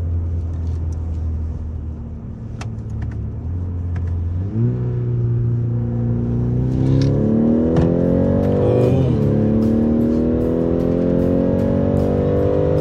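BMW X3 30e plug-in hybrid's turbocharged four-cylinder engine heard through an aftermarket variable exhaust with its valves switched open. A steady low drone gives way, about four and a half seconds in, to a rising engine note as the car accelerates. The pitch drops sharply at a gear change about nine seconds in, then climbs again.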